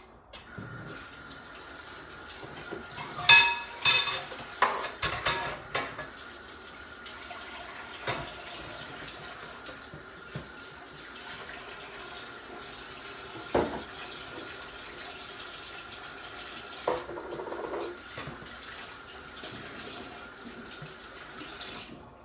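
Washing up at a kitchen sink: a tap runs while dishes and pans clink and rattle, with a cluster of ringing clinks a few seconds in and a single sharp knock about halfway through. A faint steady whine runs underneath.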